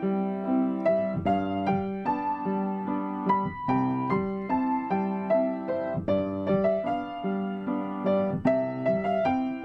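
Background music: a piano playing a slow classical piece, chords and melody notes struck in an even, gentle rhythm.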